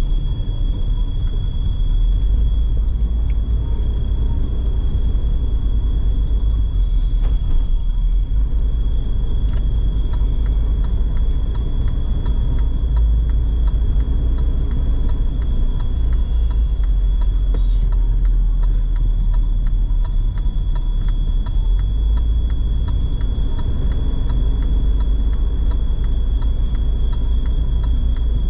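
Steady low rumble of a car driving on the road, with a faint, steady high-pitched whine running through it.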